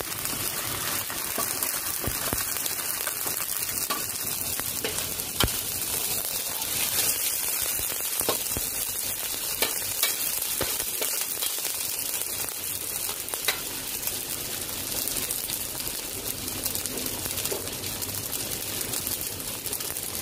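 Tomato frying and sizzling in a pan with a sautéed chili, garlic, ginger and onion paste as it is stirred, with a steady sizzle and a utensil clicking against the pan now and then.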